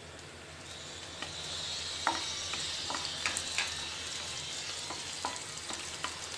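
Chopped green chillies, ginger and garlic sizzling in a little hot oil in a non-stick pan. A wooden spatula stirs them, knocking and scraping against the pan about a dozen times.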